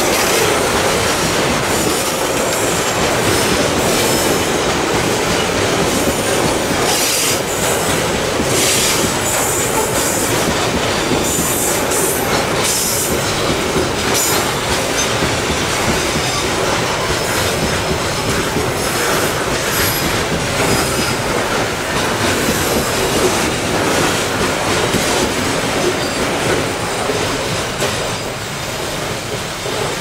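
Coal-loaded hopper wagons of a long Babaranjang coal train rolling past slowly: a steady rumble and clatter of wheels on rail, with high metallic wheel squeal coming and going, most of all in the first half.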